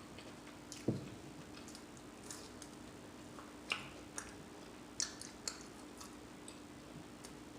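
Close-miked chewing with scattered wet mouth clicks and smacks, about eight of them, spaced irregularly, over a faint steady hum.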